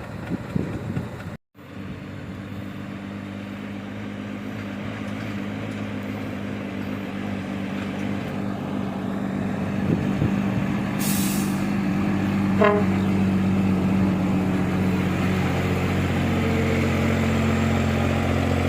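Diesel engine of an empty logging truck running steadily and slowly growing louder, with a short hiss about eleven seconds in.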